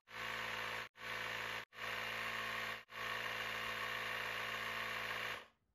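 Handheld cordless electric tyre inflator running with a steady buzz as it pumps air into a fat e-bike tyre set to about 27.5 psi. It cuts out for a split second several times and stops near the end.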